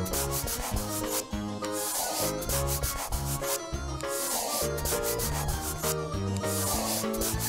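Scratchy rubbing sound effect of colouring in, in three strokes about two seconds apart, over light background music that plays in steady stepping notes.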